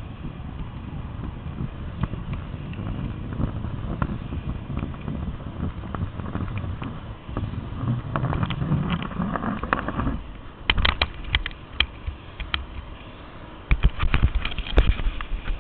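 A camera in its housing being hauled up on a line: a low rushing rumble of wind and water for about the first ten seconds, then two bursts of sharp knocks and clatters as it bumps against the platform's metal structure and is taken in over the deck grating.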